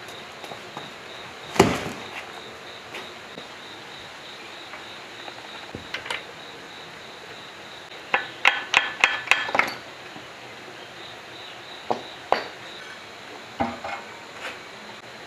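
Metal engine parts being handled: a single heavy thud about a second and a half in, then a quick run of sharp metallic clinks from connecting-rod caps and bolts on the crankshaft inside the cast-iron block, and a few more single clinks near the end as the crankshaft is worked loose and lifted.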